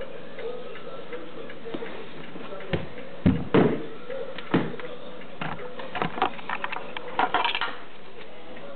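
A series of knocks and clunks of things being handled, the loudest two about three and a half seconds in, followed by a run of lighter clicks and taps that stops shortly before the end.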